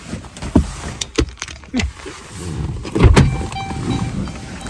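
Clunks and knocks of someone climbing out of a Dodge Grand Caravan minivan, with several separate thumps, the loudest about three seconds in.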